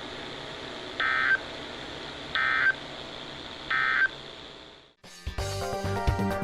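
Emergency Alert System end-of-message data tones: three short, two-pitch warbling data bursts about a second and a half apart over a steady hiss, marking the end of the alert. The hiss then fades out and music starts about five seconds in.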